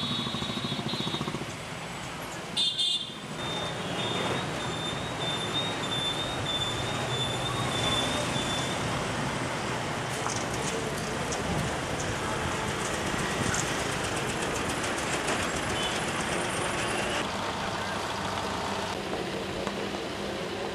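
Road traffic: motorcycles and cars passing on a city street, a steady hum of engines and tyres. Brief horn honks come in the first second and again about three seconds in.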